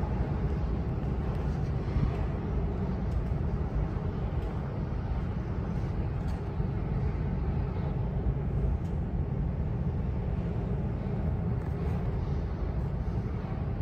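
Steady low rumble of subway station ambience, a dull even roar with no single event standing out.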